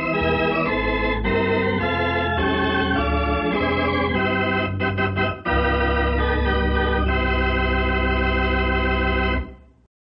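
Organ playing the closing theme of a radio drama: a run of sustained chords, a brief break about five seconds in, then one long held final chord that fades out just before the end.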